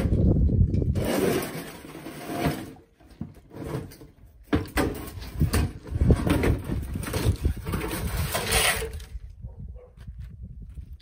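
Rough clearing-out work: rustling, scraping and knocking as old wool nesting material and boards are pulled from a cupboard and thrown down, in irregular bursts that die down near the end.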